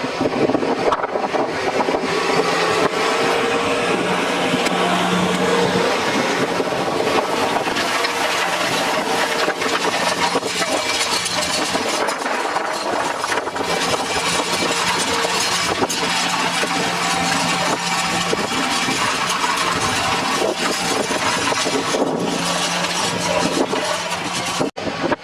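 Tractor engine running steadily at a constant speed, with a dense mechanical clatter over its hum, while the tractor ploughs. The sound breaks off briefly near the end.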